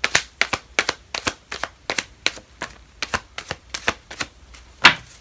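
Oracle cards being shuffled by hand, a run of quick card slaps at about three a second, ending with one louder slap near the end.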